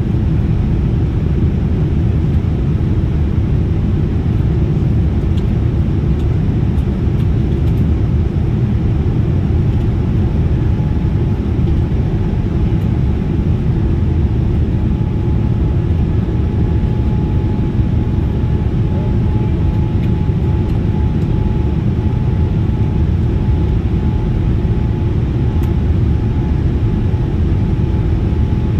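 Steady engine and airflow rumble inside the cabin of a Boeing 787-10 airliner in flight. A faint steady whine joins in about a third of the way through.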